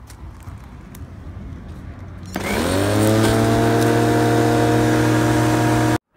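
A corded electric rotary lawnmower is switched on a little over two seconds in: its motor spins up with a quick rising whine, then runs steadily at full speed. The sound cuts off suddenly near the end.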